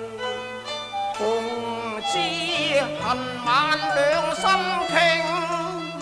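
Cantonese opera accompaniment ensemble playing an instrumental passage between sung lines: a bowed string instrument carries the melody with wavering vibrato over low held bass notes.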